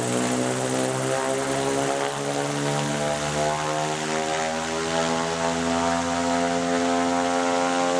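Rolls-Royce ionBird ground-test rig's electric motor spinning its propeller: a steady droning hum made of many even tones that holds its pitch.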